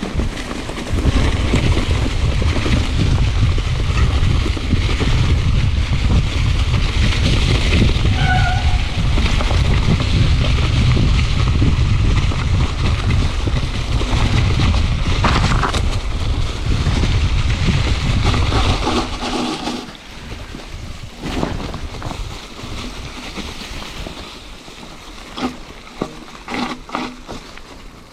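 Wind buffeting the microphone of a mountain bike's ride camera, a loud steady rumble, with tyre and trail noise under it. After about nineteen seconds the rumble drops away, leaving quieter rolling noise with scattered clicks and knocks from the bike over rough ground.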